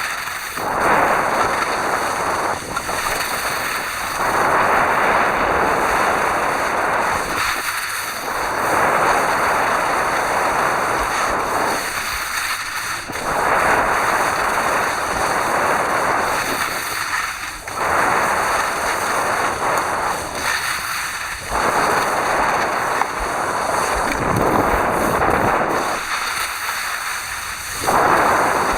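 Wind rushing over the microphone while skiing downhill, loud and rough, swelling and easing about every four or five seconds.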